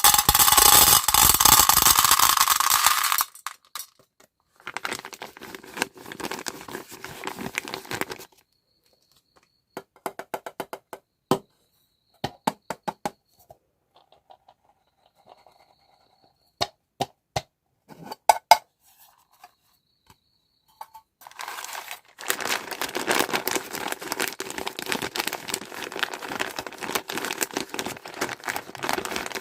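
Plastic packaging crinkling and tearing, loud at the start and again from about two-thirds of the way through, with a quieter middle stretch of scattered sharp clicks and taps.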